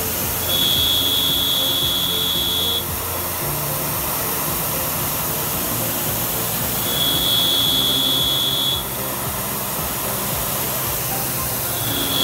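Tormach PCNC 770 CNC mill with an end mill cutting along the edge of an aluminium bar: a steady hiss and hum, with a high steady whine that comes in three times, about two seconds each.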